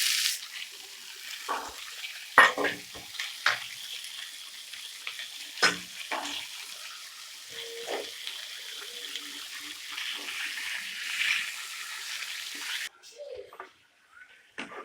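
Hot oil sizzling in a pan as washed spinach leaves are tipped in and stirred. The hiss drops as the wet leaves go in, then runs steady, with several sharp knocks and clatters of the spatula against the pan. The hiss cuts off suddenly near the end, followed by a few more knocks.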